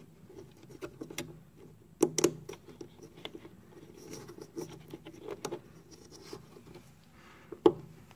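Small plastic clicks and scrapes from fingers working a hinged fuse-holder terminal block, closing it on a newly fitted 5 x 20 mm fuse. There is a louder click about two seconds in and a sharp snap near the end.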